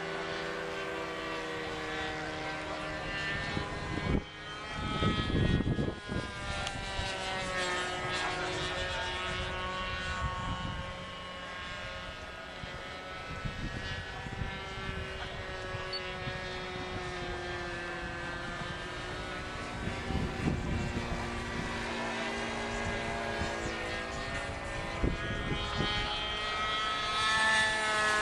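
NGH 9cc single-cylinder two-stroke gasoline engine of a radio-controlled model airplane in flight, its propeller buzz slowly rising and falling in pitch. A brief low rumble comes about four seconds in, and the engine grows louder near the end.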